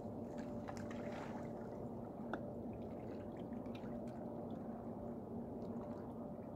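Loose-fed bait pellets landing in the dock water as a few small scattered plops over the first couple of seconds, with one sharper tick a little later, over a steady low hum.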